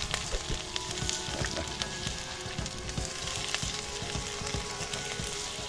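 Wood fire crackling and popping in a metal can stove, with irregular sharp snaps over a steady hiss, while a pan of rice sizzles and bubbles on top.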